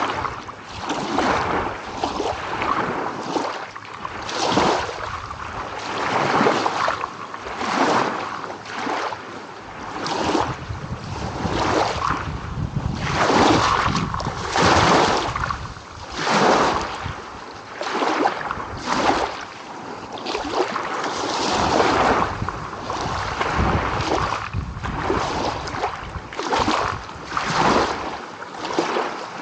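Small ocean waves breaking and washing in one after another, a steady wash of surf that swells and fades every second or two.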